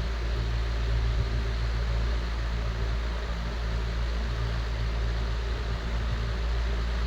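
16-inch Robbins & Myers antique oscillating table fan running: a steady low motor hum under an even rush of air from the blades.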